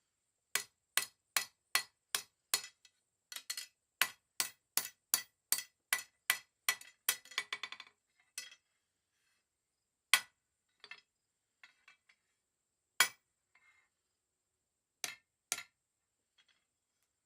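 Hammer blows on steel at the anvil, each ringing sharply. A steady run of about two and a half blows a second breaks into a quick flurry of light taps, then a few single blows follow spaced seconds apart.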